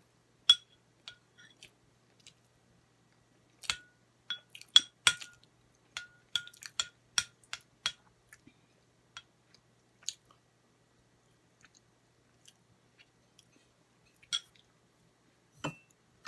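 Plastic fork clicking and tapping against a plate while scooping rice, a quick run of clicks in the middle and scattered ones after, each with a brief ring from the plate. Close-up chewing of rice and chicken between the clicks.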